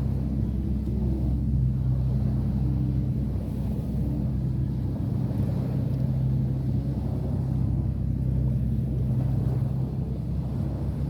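An engine running steadily at an even pitch, a low hum that holds throughout.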